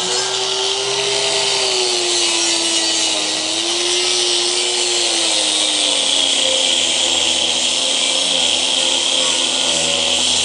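Angle grinder with a 60-grit flap disc grinding a steel plate smooth: the motor's running tone under a steady gritty hiss of abrasive on metal. The motor tone sinks slightly in pitch through the middle and stays lower.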